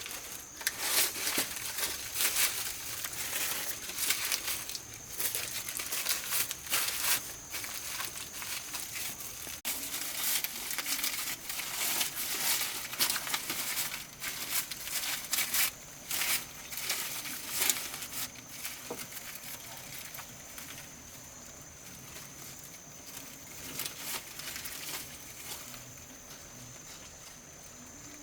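Irregular dry crinkling and tearing, as of dry material being handled, thinning out over the second half, with a faint steady high tone behind it.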